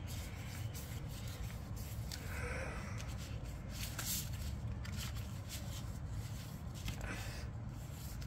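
A sheet of paper being folded and creased by hand: scattered crinkles and rubbing over a steady low hum.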